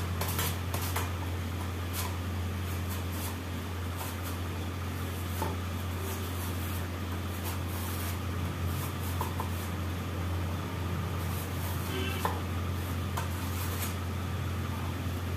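A peeled potato scraped across a stainless-steel slicer over a steel bowl: irregular scraping strokes and light metallic clicks as slices are cut, over a steady low hum.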